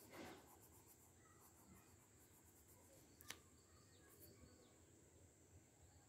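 Near silence: faint room tone with a steady high-pitched hiss, and one faint click about three seconds in.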